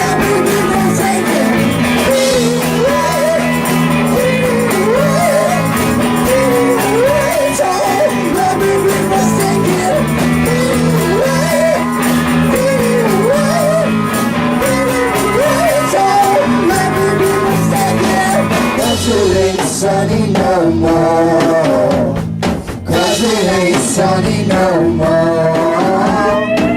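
Blues-rock band playing with electric guitar, bass, drums and singing; a lead line bends up and down over a steady accompaniment.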